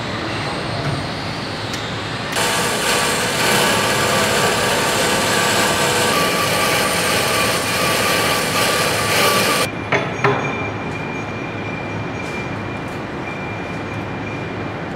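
A power tool cutting or grinding 1-inch steel tubing: it starts about two seconds in, runs loud and steady with several whining tones for about seven seconds, then stops abruptly, followed by a couple of clicks. A steady background hum runs under it.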